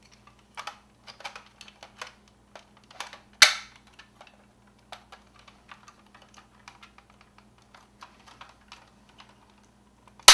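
Hard plastic parts of a Matchbox Veritech fighter toy clicking as the leg is pressed onto its push pins, with a loud snap about three and a half seconds in and another at the very end as the plastic snaps into place.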